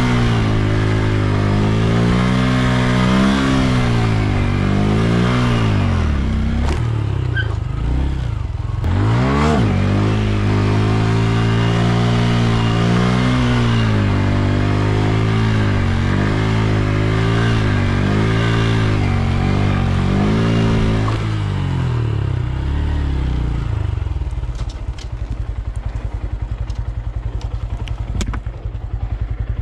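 Small motorcycle engine under way at low speed, its revs rising and falling with the throttle and dropping sharply once about nine seconds in. About 21 seconds in it settles to a steady idle, with a few light clicks near the end.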